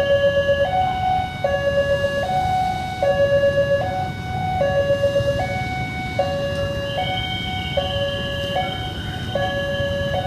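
Indonesian railway level-crossing (PJL) warning siren, alternating steadily between a low and a high tone, each held just under a second: the signal that a train is approaching the crossing.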